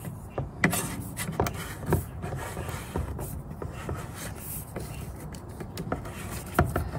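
Insulated electrical wire being pushed by hand down through a PVC conduit fitting, rubbing and scraping against the plastic, with irregular clicks and knocks as it strikes the box. The sharpest knocks come about half a second in and again near the end.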